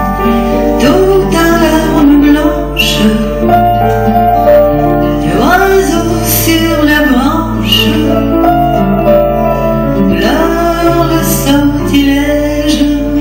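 A woman singing a chanson in Russian, accompanied by acoustic guitar and piano.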